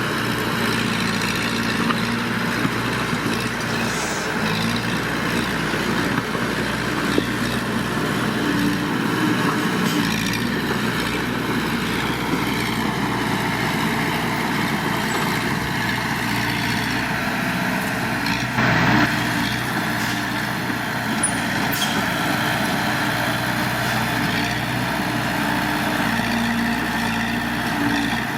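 Heavy diesel engine of earthmoving machinery running steadily at work, with a brief louder burst about two-thirds of the way through.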